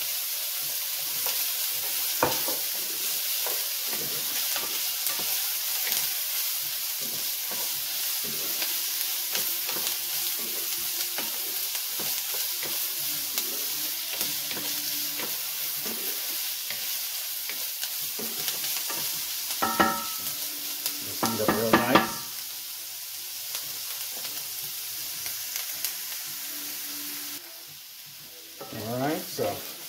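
Sliced onions, peppers and carrots sizzling in hot olive oil in a cast iron pan while being stirred with a wooden utensil, a steady frying hiss. A few louder scrapes of the utensil against the pan come around twenty seconds in and again near the end. The sizzle turns suddenly quieter shortly before the end.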